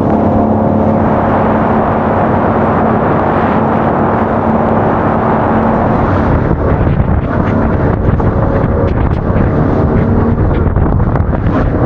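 RIB's engine running steadily under way, its even note under a loud rush of wind and water, with irregular sharp knocks from about halfway through.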